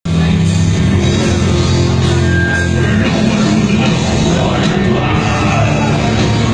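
A live rock band playing loud, heavy music, with dense distorted sound and sustained low notes.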